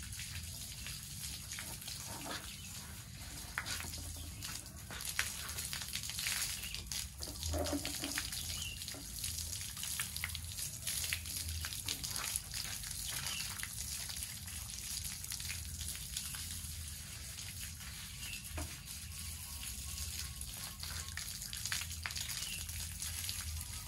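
Water splashing steadily over a fixed-gear bicycle as it is doused to rinse it, with irregular splatters throughout.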